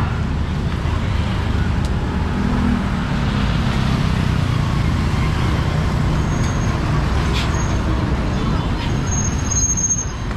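Steady street traffic noise: the engines of passing vehicles. A thin high squeal sounds briefly near the end.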